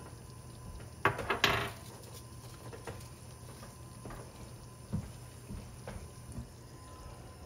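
Tomato meat sauce simmering gently in a Dutch oven, with a few soft, separate bubble pops over a low steady hum. There is a short handling noise about a second in.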